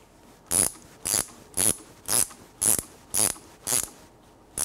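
Ratchet wrench clicking in short strokes, about two a second with a brief pause near the end, as it turns the forcing screw of a two-jaw puller drawing the front crankshaft seal race off its snout; the race is starting to come off.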